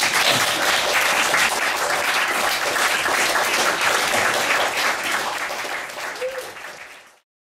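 Audience applauding at the end of a reading, thinning out about five seconds in and then cutting off abruptly near the end.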